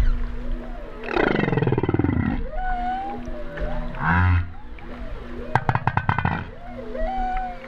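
Humpback whale calls heard underwater: wavering tones, a long call falling steeply in pitch about a second in, a short low grunt near four seconds, and a rapid train of pulses around six seconds.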